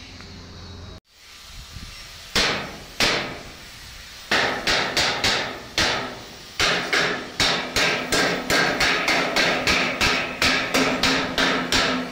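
Hammer blows on metal, each one ringing: two single strikes, a short pause, then a steady run of about two to three blows a second.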